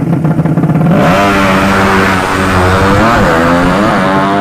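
Racing motorcycle with a 200cc horizontal-cylinder ('sleep') engine running at low revs, then revving up sharply about a second in and holding high revs, its pitch dipping and climbing again a couple of times.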